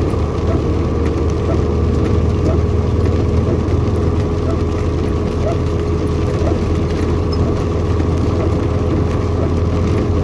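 Vehicle cab noise while driving on a wet highway: a steady low engine drone with the hiss of tyres on wet asphalt, and scattered light ticks throughout.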